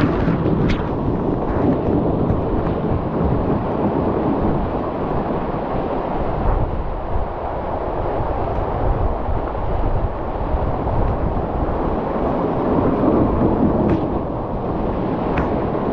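Water falling down a rock face and pouring into the sea right at the kayak's bow, a loud steady rush. A few sharp ticks of drops striking close to the camera.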